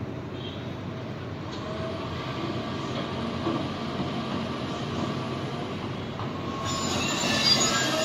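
A heavy vehicle rumbling steadily and growing louder, with high metallic squealing that starts about seven seconds in.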